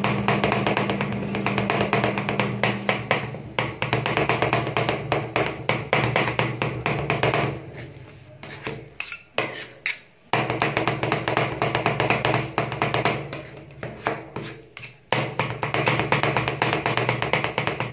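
Two metal spatulas chopping fast on a frozen steel ice cream pan, a dense run of clacking strikes as mint leaves and dates are chopped into the ice cream base. It eases off twice, about eight and about fourteen seconds in, then picks up again.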